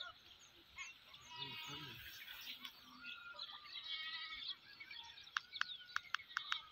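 Birds chirping faintly and repeatedly in the background, with a quick run of sharp clicks near the end.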